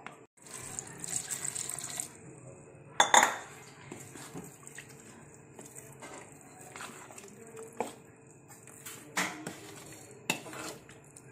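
A metal spoon stirring and scraping thick, wet flour-and-jaggery-syrup batter in a plastic bowl. It knocks against the bowl now and then, loudest about three seconds in.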